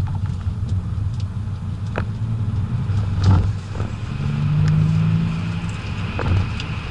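BMW E61 535d's twin-turbo straight-six diesel running under way, heard as a steady low rumble with tyre and road noise. There is a sharp knock about three seconds in, and a steady low engine note holds for a second or two after four seconds.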